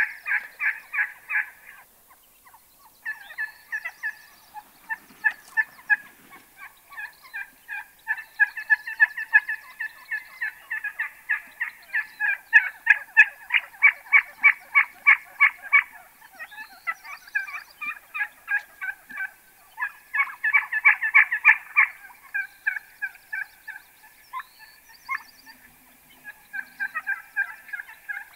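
A flock of Gould's wild turkeys calling, in quick runs of short repeated notes that go on almost without pause, with a brief lull about two seconds in.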